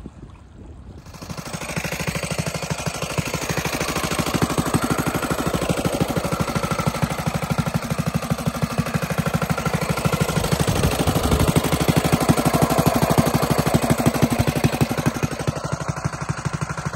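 Mini bike's 196cc single-cylinder four-stroke engine running, its rapid firing pulses coming in about a second in and holding steady.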